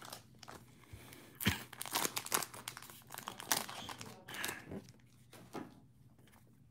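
Crinkling and rustling of a foil Pokémon card booster pack being handled and opened, in short irregular rustles that die down near the end.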